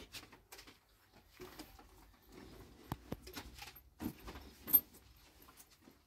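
Scattered light knocks and clinks of household things being handled, with one sharp, bright clink a little before five seconds in.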